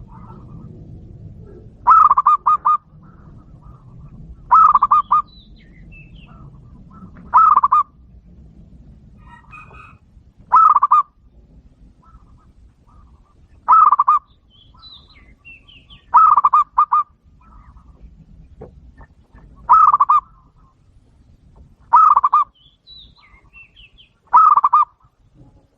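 A dove cooing in a regular cycle: nine short, stuttering coos, each a quick run of several notes, repeating about every two and a half to three seconds. Faint chirps of small birds sound between the coos.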